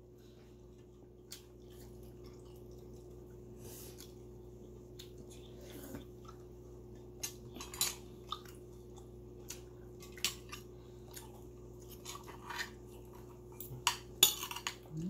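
Eating sounds: scattered light clicks and clinks of food being handled on a plate, more frequent near the end, over a steady low hum.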